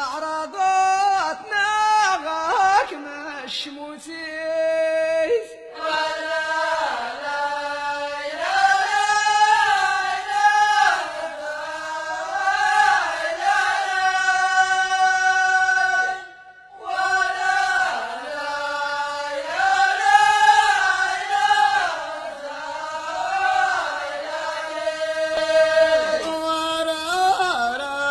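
Amazigh ahwash singing: voices chant a sung verse in long held notes that slide between pitches. There is a short break about sixteen seconds in.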